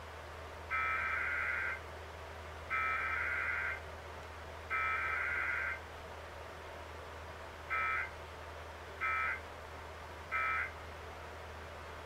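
Emergency Alert System SAME data bursts from a TV speaker during a Required Weekly Test: three long, raspy digital-data bursts about a second each, then three short bursts, the end-of-message code that closes the test.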